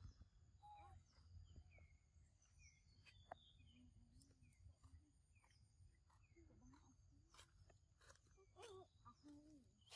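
Near silence: faint outdoor ambience with a low rumble and scattered faint bird chirps, and a faint voice near the end.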